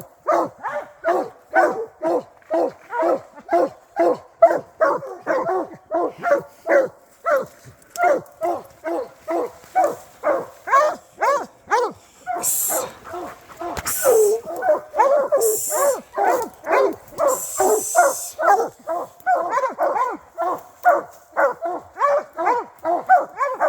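Bear hounds barking steadily at a treed bear, about two to three barks a second, the tree bark of dogs holding a bear up a tree. A few short rustling hisses sound in the middle.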